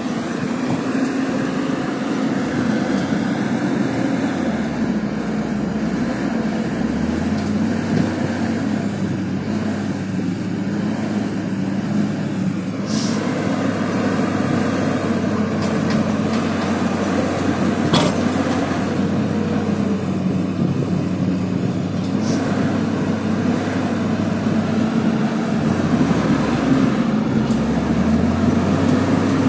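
Diesel engine of a Caterpillar crawler excavator running steadily under load while it works a bundle of logs, its low drone shifting in pitch a few seconds in and again near the end. A few sharp knocks cut through it around the middle.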